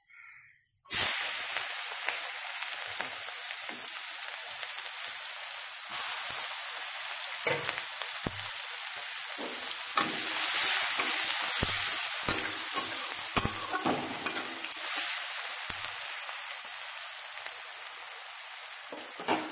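Onion pieces dropped into hot oil in a wok start sizzling suddenly about a second in, then keep frying with a steady sizzle. A spatula stirs them, knocking and scraping against the wok now and then.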